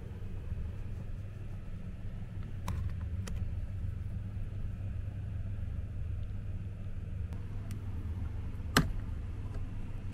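Steady low rumble in a coach's cabin, with two light clicks about a third of the way in and one sharp click near the end from the seat fittings being handled.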